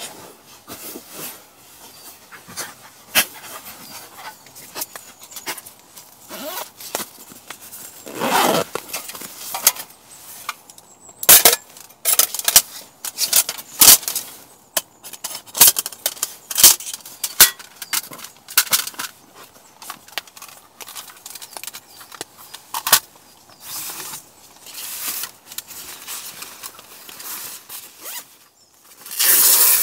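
Things being handled: an irregular run of sharp clicks and knocks, with a longer rustle about eight seconds in and another near the end.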